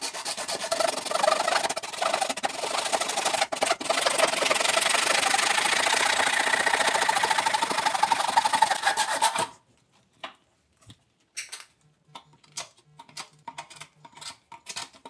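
Handheld saw blade cutting through a black plastic drain tailpiece, a steady rasping that stops about nine and a half seconds in. After it come a few short, light scrapes as the blade is run over the freshly cut edge.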